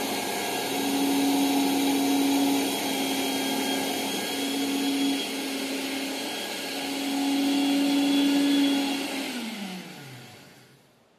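Electric mixer grinder (mixie) running steadily on its small jar, grinding soaked raw rice into flour. About nine seconds in it is switched off and the motor winds down, its pitch falling until it stops.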